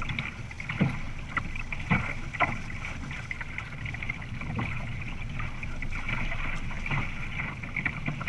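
Water rushing and splashing along a Topcat sailing catamaran's hull as it sails fast, with wind rumbling on the microphone and a few sharper splashes of spray.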